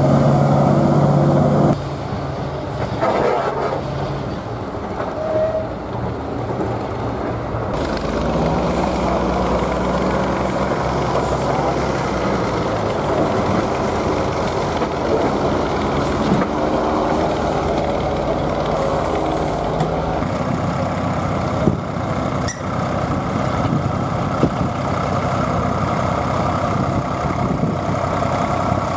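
Vintage vehicle engines heard in turn across cuts: a heavy vehicle engine for the first two seconds. From about eight seconds in, a small narrow-gauge steam locomotive works with short hisses of steam. From about twenty seconds in, a red vintage tractor's engine runs steadily as it pulls a plough.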